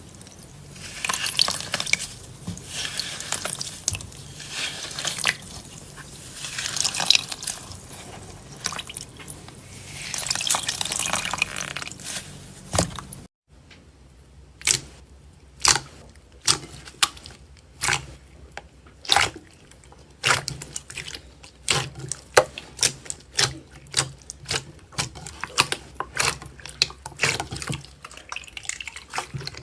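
Slime being squished and worked by hand: a dense run of wet crackles and squelches, then after a brief break a series of separate sticky pops, about one or two a second.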